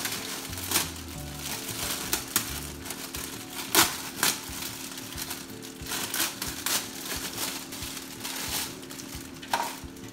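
Plastic packaging crinkling and crackling as a toy is unwrapped by hand, in irregular crackles with a few louder ones around four seconds in.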